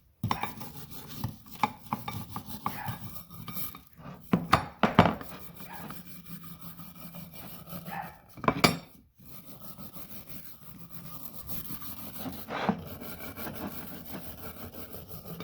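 Hand wire brush scrubbing a brake-cleaner-soaked vise part, an uneven scratchy rasping with a few louder scrapes or knocks along the way.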